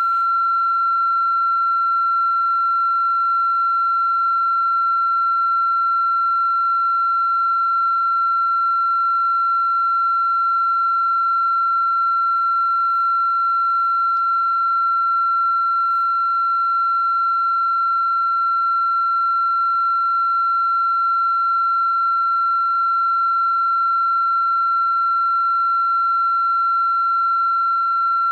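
A loud, steady electronic tone held at one high pitch without a break.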